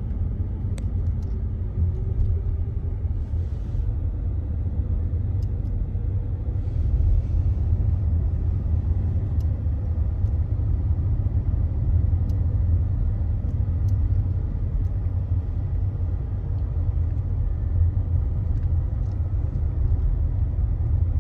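Steady low road rumble inside a moving Polestar car's cabin, with faint, irregular clicks from the micro switches in the accelerator pedal as it is pressed and eased.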